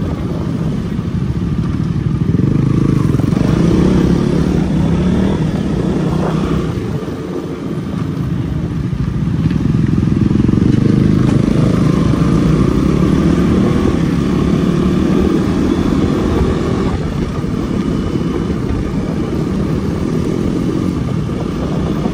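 Motorcycle engine running on the move, its sound swelling and easing a few times.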